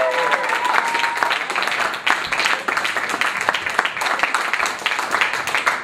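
Comedy-club audience applauding, dense hand-clapping throughout.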